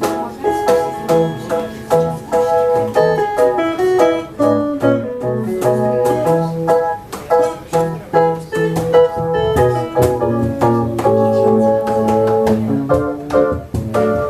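Instrumental music without singing: quick plucked-string notes over a bass line, with a sustained organ-like keyboard.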